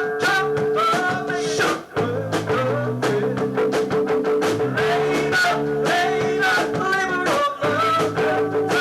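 Live new wave band playing: electric guitar, bass and drums over a held high note, with a steady beat. The band drops out briefly twice, about two seconds in and near the end.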